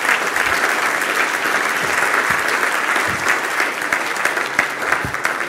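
Audience of a few dozen people applauding steadily in a function room at the end of a talk, a dense patter of hand claps.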